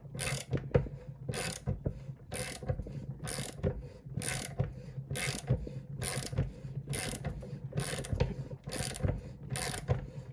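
Socket ratchet wrench clicking in repeated short strokes, about one run of clicks a second, as it turns the screw of a sight pusher tool pressing a 1911's tight rear sight out of its dovetail.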